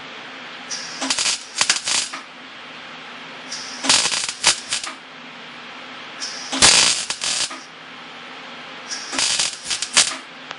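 Wire-feed (MIG) welder crackling in four short bursts of about a second each, a few seconds apart: short stitch welds laid over stress cracks in a steel car frame. A low steady hum runs underneath between the welds.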